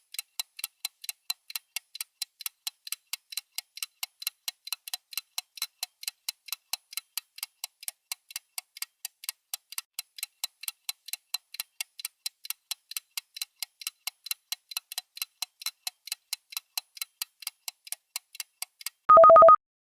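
Synthetic clock ticking from a countdown timer, about four ticks a second alternating louder and softer. Near the end the ticking stops and a loud electronic alarm beep sounds, marking that the countdown has finished.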